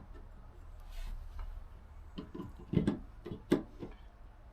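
A few light clicks and knocks, about six in the second half, as a deck hatch and dryer-vent duct fitting are handled.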